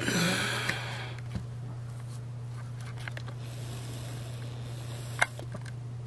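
A steady low electrical hum. A brief rustle of hands or the camera being handled in about the first second, and a single sharp click a little past five seconds in.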